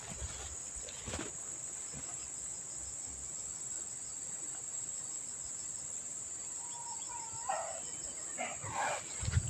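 Steady high-pitched insect chorus, like crickets, running throughout. A sharp click comes about a second in, and near the end there are a few brief wavering, rising-and-falling calls of an unidentified animal.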